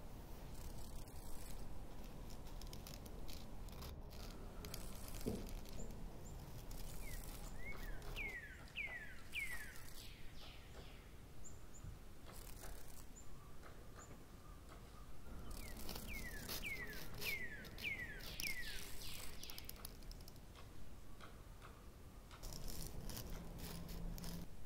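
Bird chirps: two runs of five or six short, quickly falling whistles, the first about eight seconds in and the second about sixteen seconds in, over a faint rustling background.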